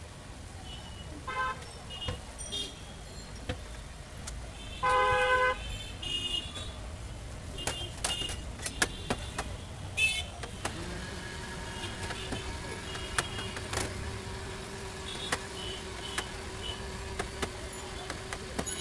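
Street traffic noise with a vehicle horn honking once, briefly, about five seconds in, the loudest sound. Scattered sharp clicks and taps run through it, and a steady hum comes in about eleven seconds in.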